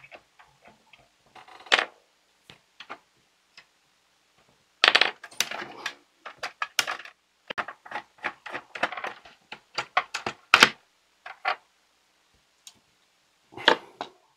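Small plastic gears and a plastic gearbox cover on a toy pinball machine's motor gearbox being pulled off and handled. The parts make a run of sharp clicks and light clatter, scattered at first and busiest from about five to eleven seconds in.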